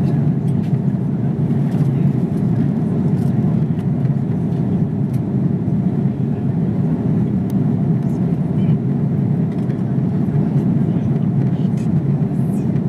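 Steady cabin noise of an Airbus A330 airliner in descent: an even, dense rumble of engines and rushing air heard inside the cabin, with a few faint clicks.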